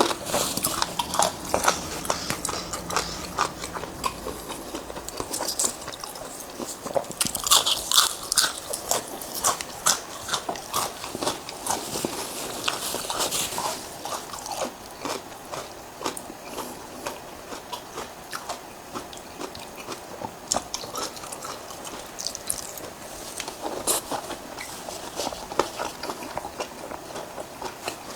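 A person eating close to the microphone: crunchy bites and chewing, with many short, sharp crunches that come thickest around the middle.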